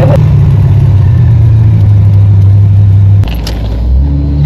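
Hot-rod car engine running loudly with a steady low exhaust note. A little over three seconds in, it switches abruptly to a quieter, lower engine sound with a couple of sharp clicks.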